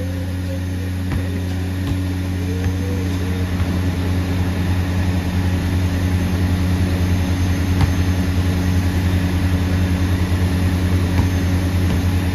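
A motor running steadily, giving a low, even hum, with a few faint thuds of a basketball bouncing on concrete.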